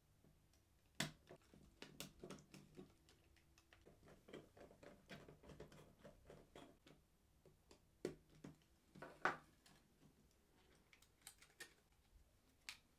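Faint scattered clicks and taps as the plastic casing of a small portable TV is handled and screwed back together with a precision screwdriver, with a few sharper clicks about a second in and again around eight and nine seconds.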